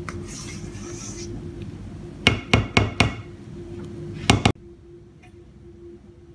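A wooden spatula knocked sharply against the rim of an aluminium tube cake pan to shake off thick sponge cake batter: four knocks in quick succession, then two more about a second later. A steady low hum runs underneath, and the sound drops away abruptly just after the last knock.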